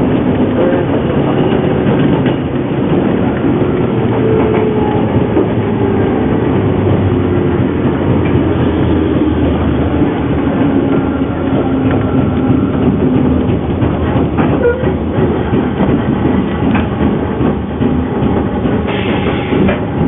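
JNR 201-series electric train running, heard from aboard: wheels clacking over the rails under a motor whine that shifts in pitch. The motors make an abnormal grinding whine like an old nose-suspended-drive train, which the uploader puts down to a motor in poor condition.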